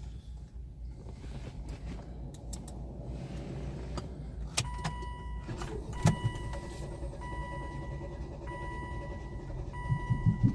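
Volvo V50 engine cranking on the starter for a long time without catching, with a steady high tone coming and going from about halfway. Near the end it begins to fire in uneven thumps, misfiring as it struggles to start. This is the occasional long-crank-then-misfire fault the owner describes.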